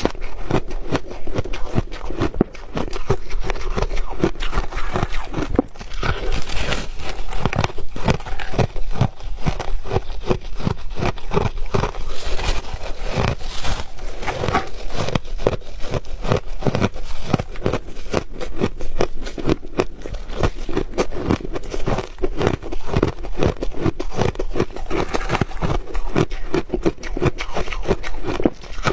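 Ice being chewed up close, a dense run of rapid crisp crunches and crackles with no let-up.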